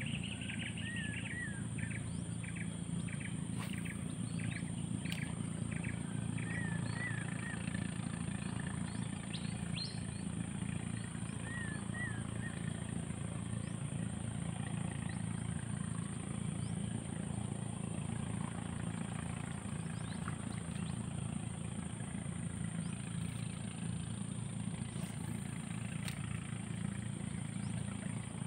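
A steady low engine drone. Birds chirp over it in the first dozen seconds, and a constant thin high-pitched whine sits behind it.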